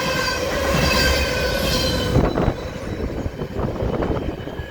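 Railroad cars rolling past, their wheels squealing in several steady high tones that stop about two seconds in. After that, knocks and clicks of the wheels over the rails sound over a rumble that fades toward the end.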